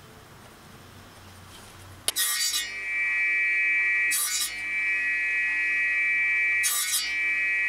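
Table saw starts about two seconds in and runs with a steady high whine, cutting through a thin wooden strip three times in short rasping bursts as the crosscut sled is pushed through the blade.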